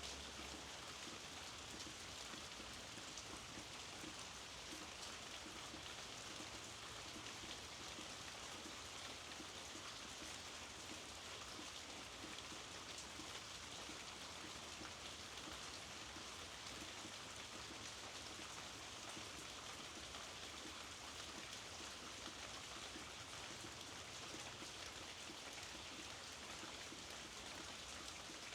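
Steady rainfall, with a dense patter of drops on surfaces. It holds even throughout, with no gusts or breaks.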